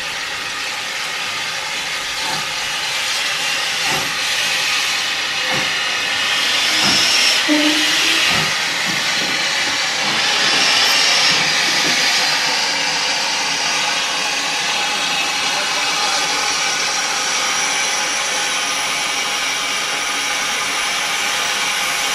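Steam locomotive letting steam out of its open cylinder drain cocks at wheel level: a steady loud hiss that swells twice, about seven and eleven seconds in. A few knocks are heard in the first half.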